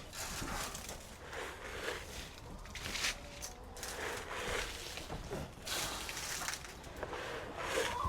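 Irregular crunching and rustling, about one burst a second, like footsteps and handling in a chicken yard.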